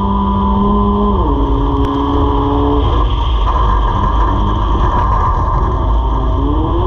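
Race car engine heard from inside the cockpit, running hard. Its note drops about a second in as the car eases off into the turn, stays low, then climbs back up near the end as it accelerates out.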